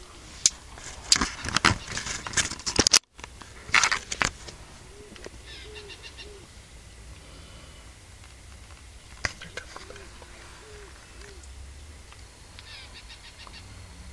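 Camera and blind handling noise: sharp clicks and rustling for the first four seconds, with a brief cutout about three seconds in. After that, a quiet outdoor background with faint, short, low bird calls and a few high chirps.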